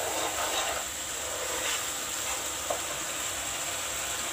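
Masala paste of onion and garlic paste with chilli, turmeric and cumin powder sizzling steadily in hot oil in a pan as it is stirred with a wooden spoon. There is one light knock of the spoon about two-thirds of the way through.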